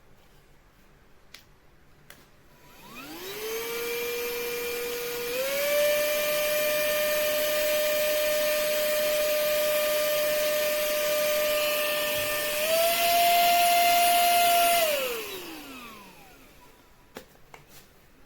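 Tiazhan handheld vacuum and air duster's small high-speed motor spinning up with a rising whine. It steps up in speed twice and runs steadily between the steps. It is then switched off and winds down with a falling whine.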